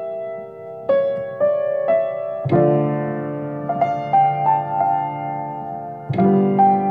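Piano played slowly: a melody of single held notes that ring into one another. Fuller chords with a bass note come in about two and a half seconds in and again near the end.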